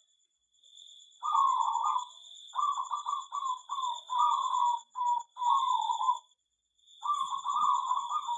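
Zebra doves (perkutut) cooing: several runs of rapid, burbling coos, with a short break near the end. A steady high-pitched buzz runs underneath.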